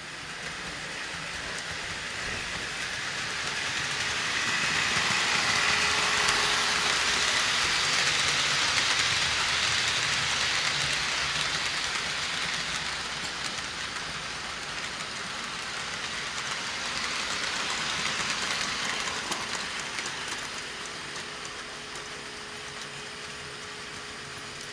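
HO scale model train running along the layout's track, a steady rolling rush of wheels and motor that grows louder as it comes near, then fades away, with a smaller rise again later.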